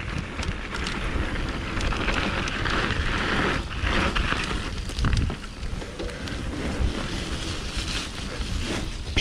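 Mountain bike riding along a dirt trail: tyre rumble with the bike rattling and clicking over bumps, and wind buffeting the microphone.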